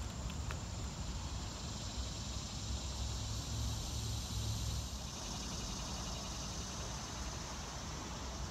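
Outdoor ambience of insects droning steadily over a low rumble, the insect sound thickening about halfway through, with a couple of faint clicks near the start.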